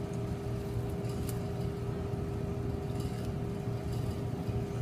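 Steady low mechanical hum of a restaurant's machinery, with a faint steady tone over it and a few faint clicks.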